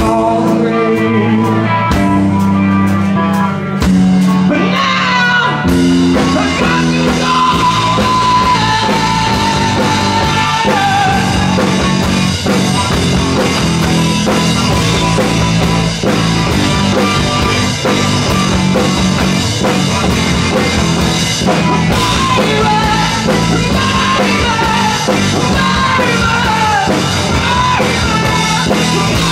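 Live rock band playing: sustained electric guitar and bass chords at first, then the drum kit and full band come in about six seconds in. A singer wails over the band at times.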